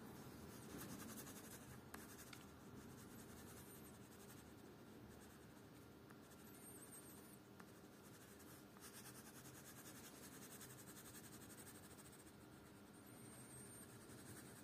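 Colored pencil scratching faintly on paper in continuous shading strokes.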